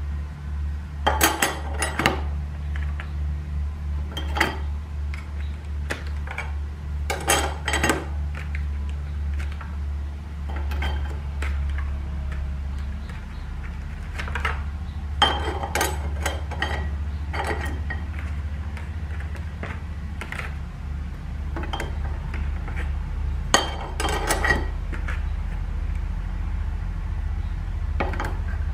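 Steel clutch plates and friction discs clinking and scraping against one another as they are handled and stacked one at a time into a 47RE transmission's direct clutch drum, in scattered clusters of light metallic clinks over a steady low hum.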